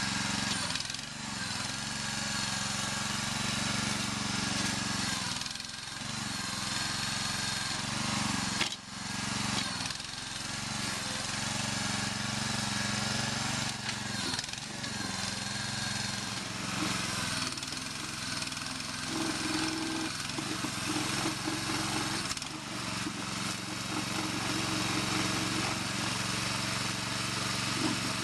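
Homemade backhoe's small 6-horsepower single-cylinder gas engine running steadily, driving the hydraulic pump while the control valve is worked. The level dips briefly a few times, and a higher steady tone joins about two-thirds of the way through.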